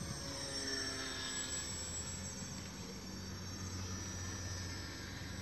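Radio-controlled model seaplane's motor and propeller running in flight with a high-pitched drone, its pitch dropping about a second in as it passes.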